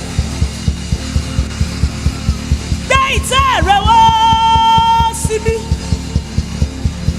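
Worship music with a fast, steady low drum beat. About three seconds in, a high melodic line bends up and down, then holds one long note until about five seconds in.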